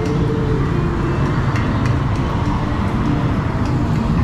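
Yamaha NMAX 155 scooter under way, its single-cylinder engine running steadily under loud road and riding noise.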